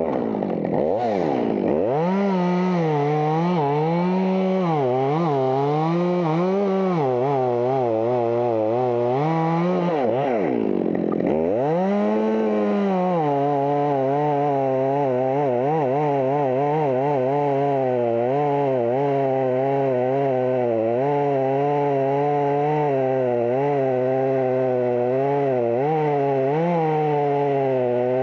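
Two-stroke chainsaw running hard and cutting, its engine pitch wavering up and down as the chain loads in the wood. The pitch drops steeply and climbs back twice, just after the start and again about ten seconds in.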